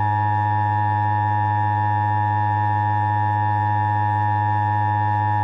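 Emergency Alert System two-tone attention signal (853 and 960 Hz sounded together), a loud, steady, harsh buzzing tone. It announces the emergency warning message that follows, here a severe thunderstorm and tornado warning.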